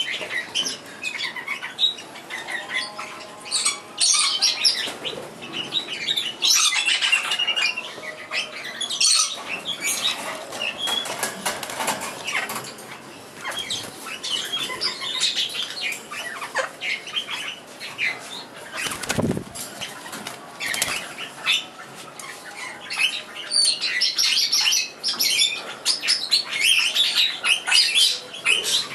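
A flock of splendid parakeets (scarlet-chested parrots) in an aviary, chirping and twittering continuously in short high calls, with wings fluttering now and then.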